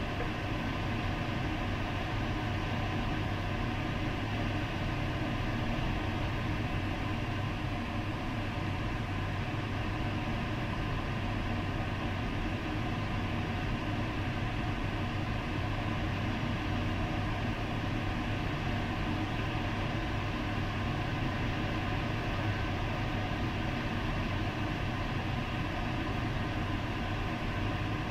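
Steady rush of airflow around a sailplane's canopy and cockpit in gliding flight.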